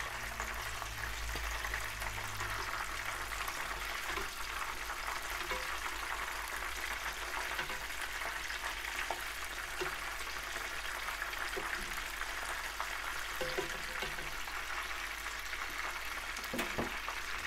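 Batter-coated oysters deep-frying in a pan of oil as oyster tempura: a steady sizzle with a few faint clicks.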